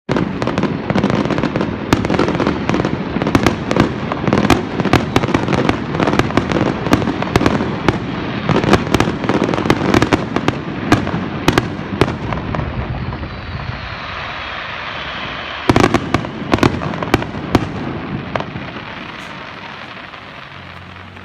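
Fireworks finale: a dense barrage of booms and sharp cracks that thins out after about two-thirds, with one brief last flurry of cracks, then fading crackle.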